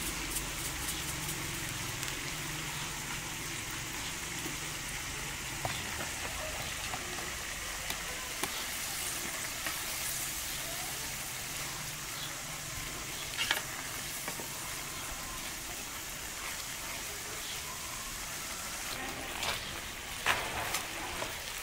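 Onion and sour-pomegranate sauce sizzling steadily in a pan over a wood fire, with a wooden spoon stirring it. A few sharp knocks break in, the loudest near the end.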